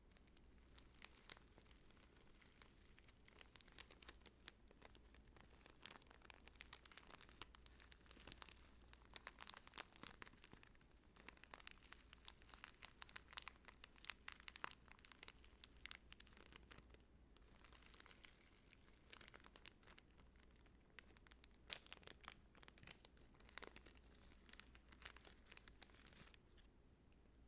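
Soft crinkling and rustling from something light being handled close to the microphone, with many small crackles coming in irregular clusters throughout.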